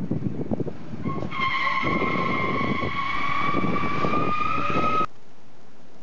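Motorcycle engines rumbling. About a second in, a motorcycle tire starts squealing in a burnout: a steady high screech that rises slightly in pitch and grows louder for about four seconds, then cuts off suddenly.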